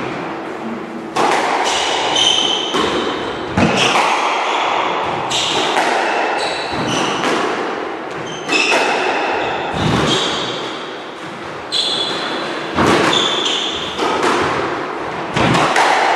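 A squash rally: the rubber ball cracked by rackets and slapping off the walls, a sharp hit every one to two seconds, each ringing in the court's echo. Short high squeaks of court shoes on the wooden floor come between the hits.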